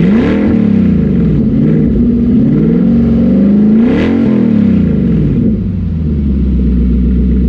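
Nissan Patrol Y62's 5.6-litre V8 running with no exhaust fitted: it idles and is revved up and back down twice, once at the start and again about four seconds in, then settles back to idle.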